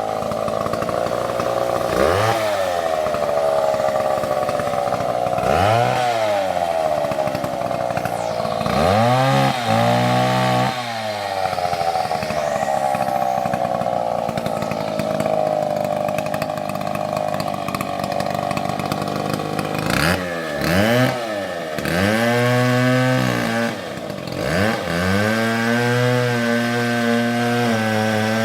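Two-stroke Stihl chainsaw cutting timber at high revs, the throttle let off and opened again several times so the engine note falls away and climbs back. Near the end it settles at a lower, steadier speed.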